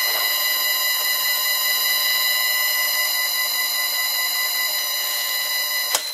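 High-pitched, buzzy electrical whine from the motor of a vintage Karger lathe fed by an old Allen-Bradley variable frequency drive, running slowly at a 10 Hz setting. The tone holds steady and cuts off abruptly near the end.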